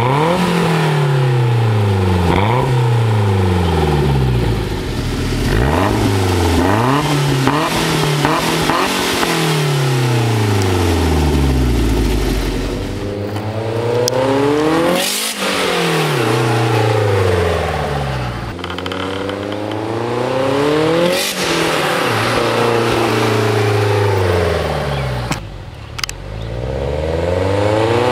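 A 1992 Toyota MR2 Turbo's stroked turbocharged four-cylinder, heard through a 3-inch dual stainless Berk exhaust, revving up and down over and over. It gives short quick blips in the first few seconds, then longer rising and falling pulls as the car drives around.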